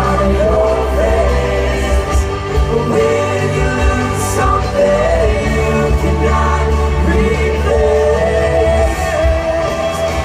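Pop music with a sung melody, wordless or unintelligible, over a steady bass and accompaniment.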